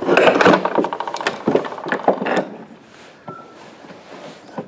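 Tools scraping, knocking and clicking against metal pipe and fittings as a stuck fitting is worked loose, busiest in the first half and quieter after.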